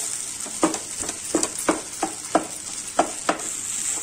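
Metal spatula knocking and scraping against a non-stick pan while chopping and stirring crumbled egg kothu idli, about eight short knocks starting just over half a second in, over a steady light sizzle from the pan.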